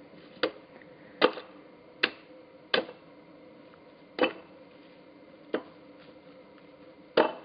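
Axe blows chopping into an Osage orange log being split for a fence post: seven sharp strikes, the first four coming quickly, the last three slower.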